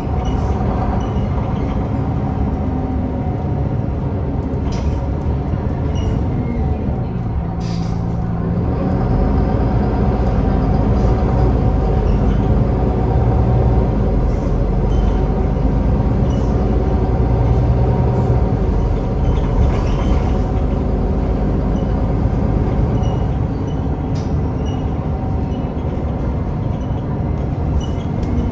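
MAN Lion's City Hybrid bus's 10.5-litre MAN D2066 inline-six diesel running as the bus drives. About seven seconds in the engine note falls, then the engine runs louder and deeper for about fifteen seconds before easing back, with a few faint rattling clicks.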